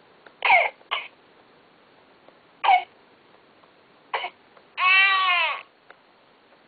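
Infant simulator doll coughing and crying through its small speaker: four short baby coughs about a second apart, then one cry of nearly a second that rises and falls in pitch.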